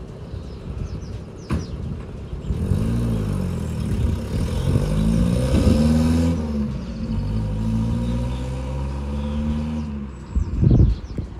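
Mazda 1800's four-cylinder engine pulling the car away and accelerating, its pitch rising and dropping several times as it is driven off. A short loud thud comes near the end.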